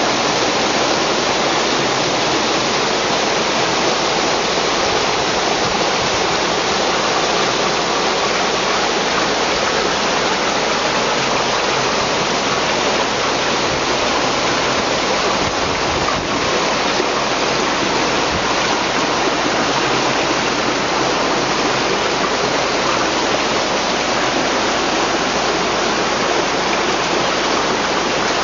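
River water flowing steadily, a continuous even rush of water with no breaks.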